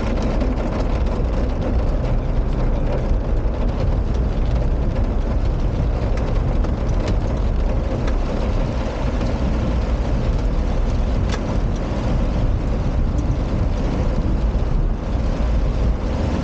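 Steady heavy rain mixed with the low rumble of a car engine idling at a standstill, with a few faint ticks.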